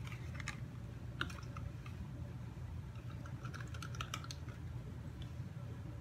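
Light, scattered clicks and taps from a paintbrush and a small plastic paint cup being handled, bunched into a quick flurry about three to four seconds in, over a low steady hum.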